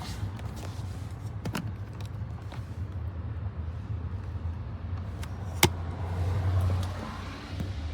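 Cordless handheld vacuum running steadily with a low hum, with scattered clicks and one sharp loud click about five and a half seconds in, and a brief swell in level just after.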